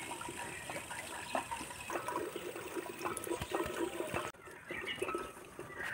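Liquid sloshing, with small irregular clicks and pops, as a wooden spoon stirs yogurt-based yakhni in a steel cooking pot on a gas burner. A steady background hiss drops away suddenly about four seconds in.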